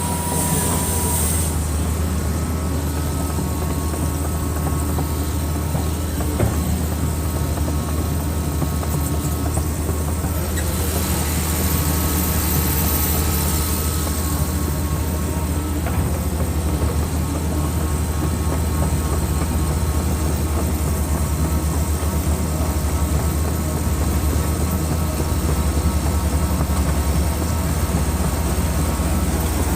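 Excavator's diesel engine running steadily with a deep, even drone.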